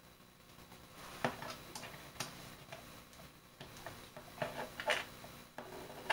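Irregular small clicks and ticks of a fastener being tightened by hand, several a second from about a second in.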